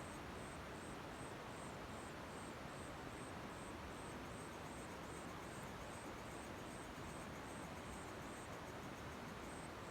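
A cricket chirping in an even, high-pitched pulse, about two to three chirps a second, pausing briefly near the end, over a steady hiss of night chorus.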